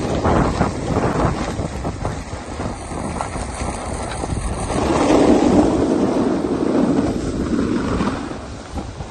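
Wind buffeting the camera microphone during a downhill slide on a ski run, mixed with the hiss of sliding over snow. It is loudest from about five to eight seconds in, then eases.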